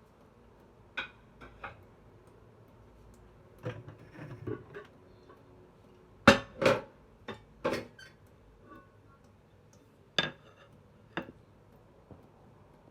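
Kitchenware knocking and clinking as it is handled and set down: about a dozen separate knocks, some in quick pairs, the loudest a little past the middle.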